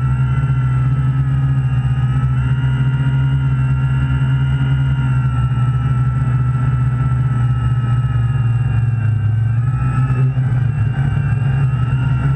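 Quadcopter's electric motors and propellers running steadily, picked up by the GoPro mounted on the craft: a loud buzzing drone with a high whine that wavers slightly in pitch.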